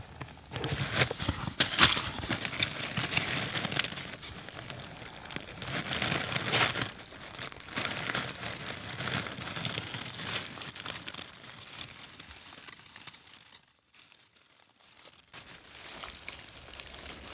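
Hands tearing and prying a beefsteak fungus (Fistulina hepatica) off an oak trunk: irregular crackling, tearing and crunching, with a lull of about two seconds near the end.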